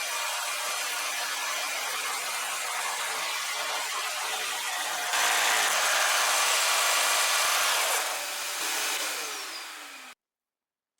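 Jigsaw mounted under a Parkside PSST A1 jigsaw table, running and sawing wood, louder for a few seconds in the middle. Near the end the motor winds down with a falling whine, and the sound then cuts off suddenly.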